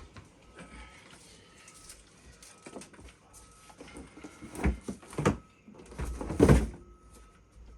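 Cardboard box being handled and cut open: soft rustles and small clicks, then two sharp knocks past the middle and a louder, longer scrape near the end.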